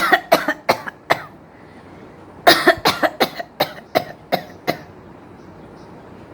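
A woman coughing on purpose in quick runs: about four sharp coughs in the first second, then after a short pause a faster string of about eight coughs, then she stops. These are put-on coughs, not a sign of illness.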